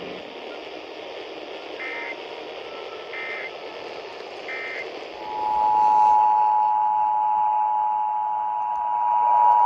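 Emergency Alert System broadcast received over radio: faint hiss with three short data-burst chirps of the SAME header about a second and a half apart, then about five seconds in the loud, steady two-tone EAS attention signal begins, announcing a required monthly test.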